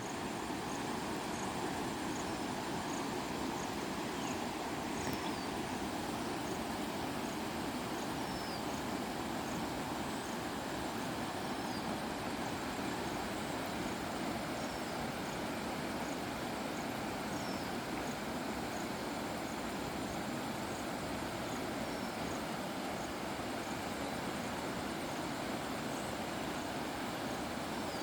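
A flowing river makes a steady, even rushing noise. Faint high chirps repeat a little more than once a second, and a short falling whistle-like call comes every few seconds.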